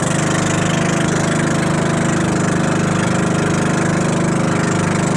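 Outrigger boat's engine running steadily under way, a loud, even drone with fast regular firing pulses.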